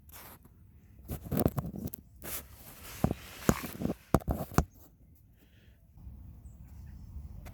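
Scattered light clicks, taps and rustling, clustered in the first four and a half seconds, then only a faint low background.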